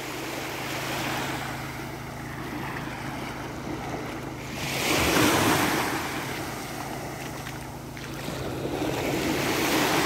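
Small Azov Sea waves lapping and washing up a sandy beach, the loudest wash about halfway through.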